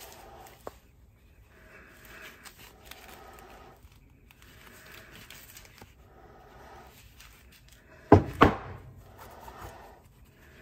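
Gloved hands handling a heavy cast metal ingot and plaque, with faint rustling and light clicks. About eight seconds in, two sharp knocks a third of a second apart: metal castings set down on the bench and scale.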